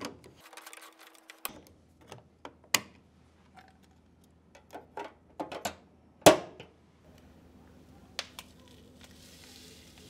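Hard plastic clicks and knocks from an Electrolux front-loading washing machine's drain pump filter being twisted back into its housing and the round access cover being pressed shut, the loudest snap about six seconds in.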